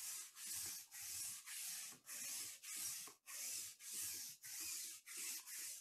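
Sticky lint roller rolled back and forth over a table mat: a regular rubbing, papery crackle, about two strokes a second.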